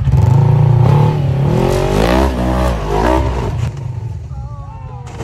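Polaris RZR RS1 side-by-side's twin-cylinder engine revving hard under heavy throttle on a rock-ledge climb, in several rising and falling surges. The revs drop off about three and a half seconds in.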